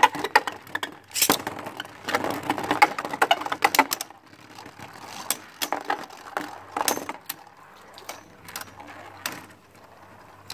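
Two Beyblade spinning tops whirring and clashing in a plastic battle stadium: a quick run of hard clicks and rattles as they collide and hit the bowl's wall, then sparser knocks with a burst of hits about seven seconds in, thinning out as the tops slow down.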